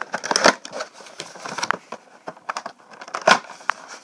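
A cardboard Funko Pop box with a plastic window being handled and opened: irregular crinkling, rustling and scraping of cardboard and plastic. The louder rustles come about half a second in and again just after three seconds.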